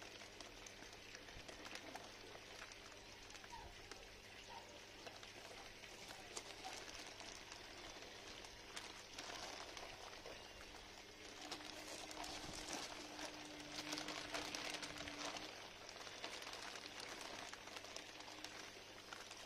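Clear plastic fish bags crinkling and rustling as they are handled and opened, a faint crackle that grows busiest about two-thirds of the way through, over a faint steady low hum.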